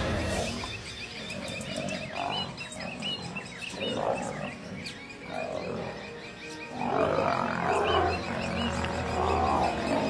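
Male lions snarling and growling as they fight, in rough bursts, loudest and longest from about seven seconds in.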